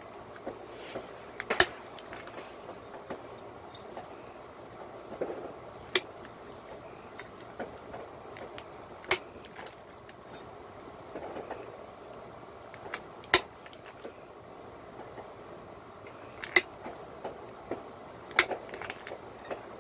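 Pressure flaking a slab of cherry quartz with a long-handled pointed flaker: sharp clicks as flakes snap off the edge, six loud ones a few seconds apart, with quieter ticks and light scraping of the tool tip on the stone between them.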